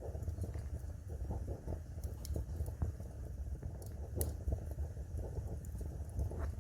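Wood fire burning in a fireplace: a steady low rumble of flame under constant soft crackling, with a few sharper pops of burning wood in the middle.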